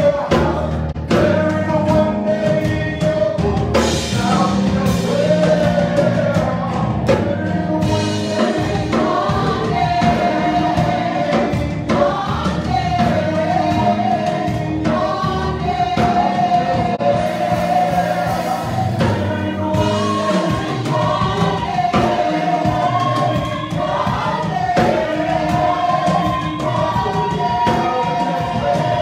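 Gospel singing by a small mixed group of men and women through microphones, over amplified accompaniment with a steady beat.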